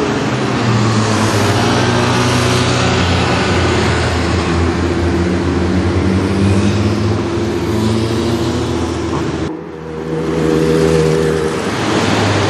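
Nissan GT-R R35's twin-turbo V6 running through an Armytrix aftermarket exhaust as the car drives past at low speed, a steady exhaust note. It dips briefly about nine and a half seconds in, then picks up again.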